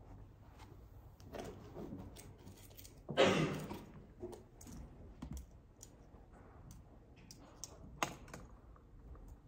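Typing on a laptop keyboard: scattered key clicks. About three seconds in there is a louder, longer rustle.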